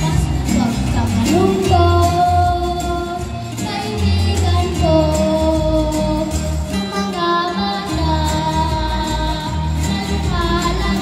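A young girl singing into a microphone over a recorded backing track, amplified through a PA system, holding long sung notes over a steady beat.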